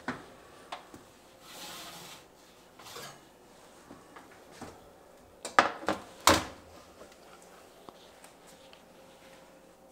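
Metal baking sheet being handled at an oven, scraping over the wire oven rack and knocking against it, with a few sharp clanks; the loudest two come a little past halfway.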